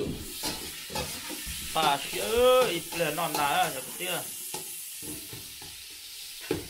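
Food sizzling in a metal pot on a gas burner while it is stirred with a metal spatula, which knocks and scrapes against the pot again and again. A voice is heard briefly near the middle.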